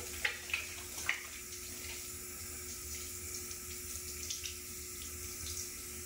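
Bathroom faucet running steadily into a ceramic sink while soapy hands are rubbed and rinsed under the stream, with a few brief splashes in the first second or so.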